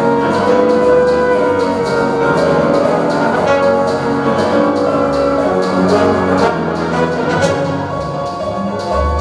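Symphony orchestra playing a passage of a newly composed piano concerto, with many held notes layered together and frequent short, sharp attacks.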